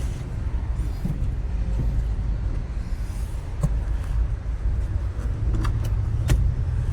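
An engine idling steadily with a low, even rumble, and a few sharp metallic clicks near the end.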